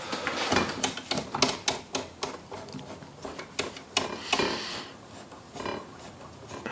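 Irregular clicks, knocks and clatter of small tools and parts being handled and set down on a workbench.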